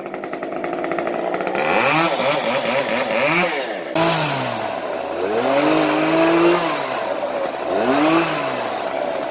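Gas chainsaw running near idle, then revved up and down several times, with one longer, held rev of about two seconds in the middle before it drops back.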